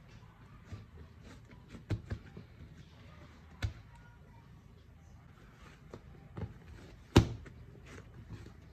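A few irregular thumps and knocks from objects being handled, the loudest about seven seconds in.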